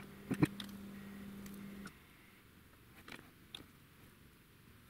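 Small sharp clicks and taps of metal tweezers and a small plastic model part being handled and fitted, a quick cluster of clicks near the start and a few scattered ones later. A low steady hum runs under them and cuts off about two seconds in.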